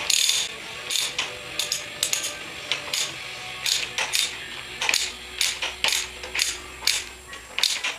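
Ratchet wrench clicking in short bursts, about one or two strokes a second, as a motorcycle fork top cap is unscrewed.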